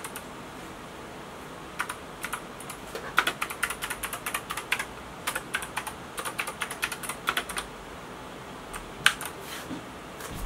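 Keys of a Geekstar GK801-2 keyboard with Kailh optical switches being pressed: a few separate clicks about two seconds in, then quick runs of presses, and one loud single click near the end.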